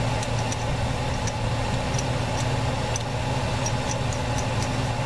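A motor running with a steady low hum, with a few faint light ticks over it.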